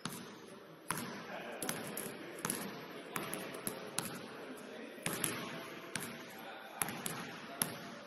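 Basketball bouncing on a court floor during play, a string of sharp, uneven bounces roughly once a second, with players' voices in the background.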